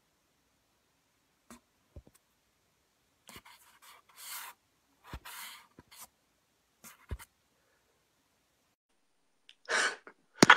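Scattered scratchy rustling and a few short knocks with quiet gaps between them, then a louder rustle and a sharp click near the end.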